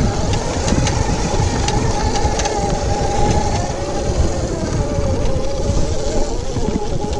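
Oset 24 electric trials bike's motor whining at a fairly steady pitch while riding, over a rough low rumble from the tyres and ground, with a few light ticks early on.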